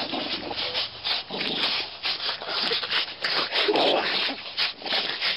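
Dogs tugging and hanging on a rope: a quick, irregular run of rough, rasping scrapes and huffs.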